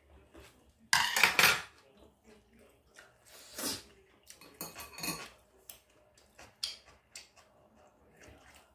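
Metal spoon clinking and scraping against a dish while eating. There is a louder clatter about a second in and another around three and a half seconds, then a few lighter taps.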